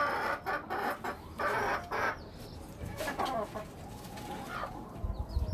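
Domestic hens clucking, a run of short calls through the first two seconds and another burst about three seconds in.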